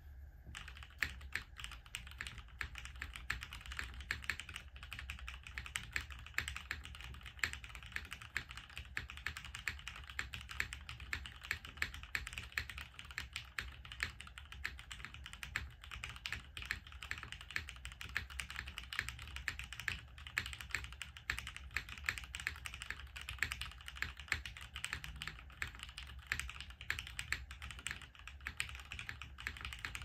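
Steady fast typing on a Hineybush Ibis mechanical keyboard, clicks coming several a second: lubed and filmed Gateron Tangerine R1 linear switches on a half FR4 plate in a top-mounted case, under GMK keycaps. A deep, muted keystroke sound with the topping-out softened by the milky switch tops.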